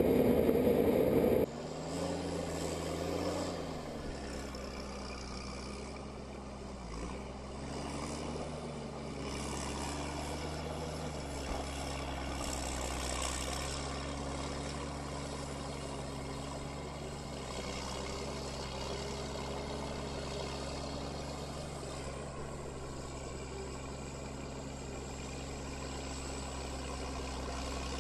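A loud rough noise for the first second and a half, then cut off. After that, a machine's engine runs steadily, its pitch dipping briefly a few times as if under momentary load.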